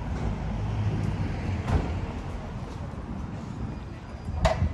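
Street traffic: the low rumble of a vehicle engine passing close, swelling about a second in. Two sharp knocks sound through it, one under two seconds in and a louder one near the end.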